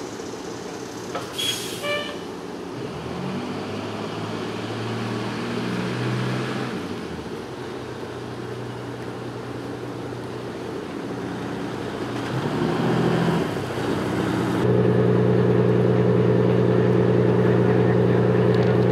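Heavy vehicle engines idling with a steady low hum, with a brief high squeal about a second and a half in. A louder, steadier engine hum takes over about fifteen seconds in.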